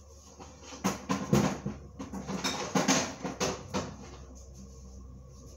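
Kitchen clatter: an irregular run of knocks and taps as containers and utensils are handled and set down on the counter, dying away about four seconds in.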